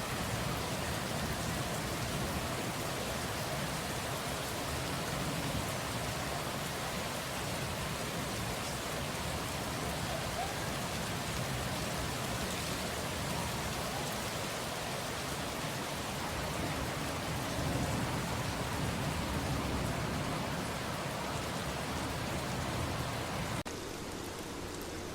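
Steady rainfall, an even wash of rain sounds. About a second and a half before the end it abruptly becomes quieter and duller.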